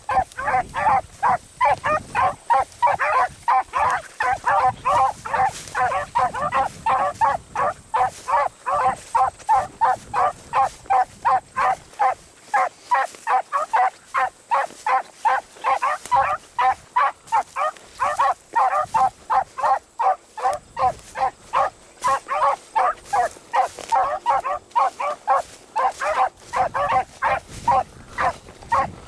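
Beagles baying on a rabbit's track: a rapid, steady chop of short hound barks, about three a second, thinning out near the end. It is the sound of the hounds giving tongue as they run the rabbit's scent line.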